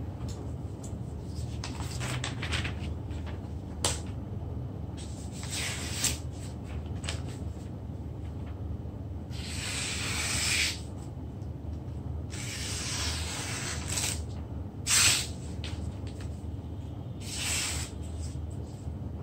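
Long knife blade scraping across a whetstone in irregular strokes, some long and some short, over a steady low hum.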